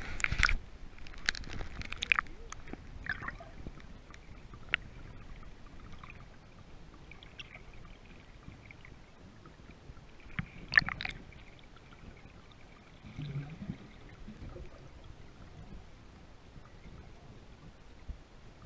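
Underwater sound picked up by a submerged GoPro: a faint, muffled water hiss with scattered sharp clicks in the first few seconds, and a brief cluster of louder clicks and knocks about eleven seconds in.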